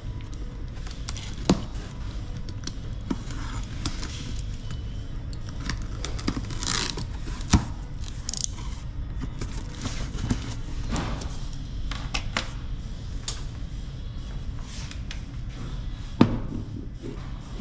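A cardboard box being opened: a blade slitting packing tape, then the cardboard flaps being lifted and folded back, with rasping scrapes and several sharp knocks.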